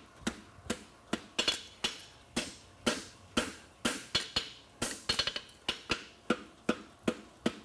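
Farrier's hammer striking a hot steel horseshoe on the anvil in a steady rhythm of about two blows a second, each with a short metallic ring, some lighter taps between.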